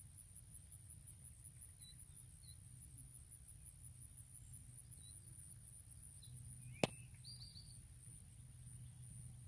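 Quiet rural pasture ambience: a steady high insect trill over a low rumble, with a few brief faint bird chirps. One sharp click about seven seconds in.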